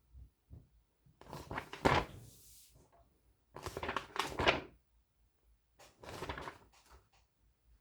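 A few knocks and bumps of objects being handled, with the loudest knock about two seconds in.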